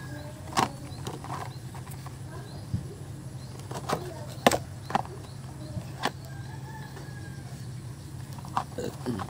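A cardboard chainsaw-chain box handled close to the microphone: several sharp taps and knocks, over a steady low hum.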